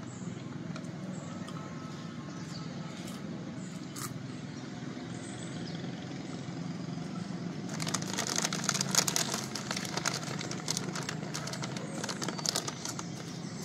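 Steady low drone of road traffic, with a plastic snack bag crinkling in a dense run of crackles from about eight seconds in to near the end.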